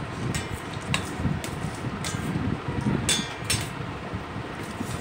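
A fork clinking and scraping on a steel plate of noodles, in a few sharp clicks. The loudest clink rings briefly a little after three seconds in. A steady fan-like hum runs underneath.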